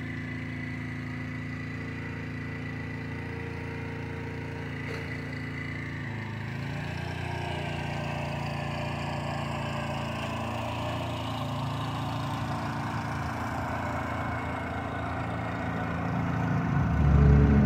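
Small gasoline engine of a walk-behind garden tiller, running steadily as it works the loose dirt. Its pitch shifts about six seconds in, and it gets louder near the end.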